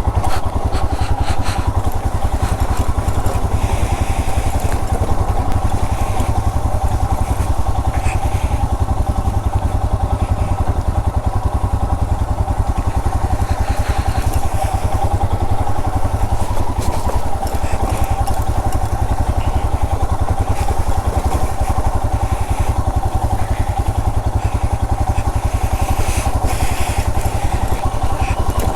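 Royal Enfield Himalayan's 411 cc single-cylinder engine running steadily while the motorcycle is ridden off-road, with occasional short clattering knocks.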